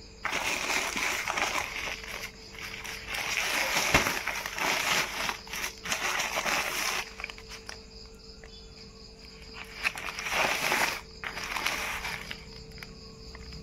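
Courier mailer bag of paper and plastic rustling and crinkling as it is handled and turned over on a plastic tarpaulin: a long spell of rustling, then a shorter one about ten seconds in.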